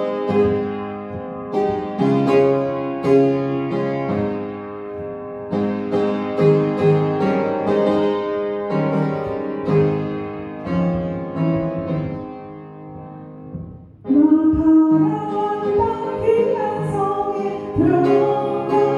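Upright piano playing a slow hymn introduction. About fourteen seconds in, a woman starts singing the hymn into a microphone over the piano accompaniment.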